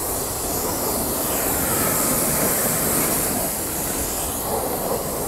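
Strong jet of water from a brass hose nozzle spraying onto a motorcycle and the wet concrete around it: a steady hiss and splatter.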